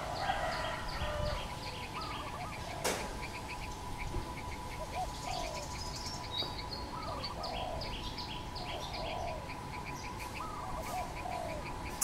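Spotted dove cooing: short low coos repeated every second or so, over rapid high chirping from other birds and a steady thin tone. A single sharp click about three seconds in.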